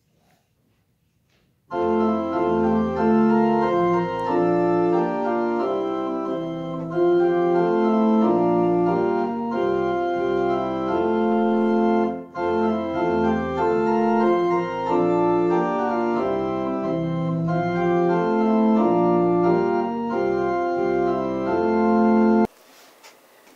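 Intro music of sustained organ chords that starts about two seconds in and cuts off abruptly near the end.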